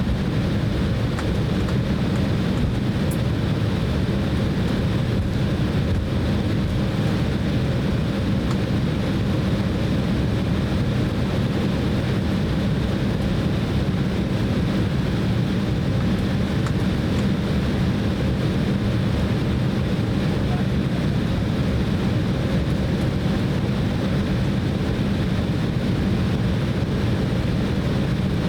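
Steady cabin noise inside an Embraer E190 airliner: the jet engines and airflow hold an even, low hum with no change in pitch or level.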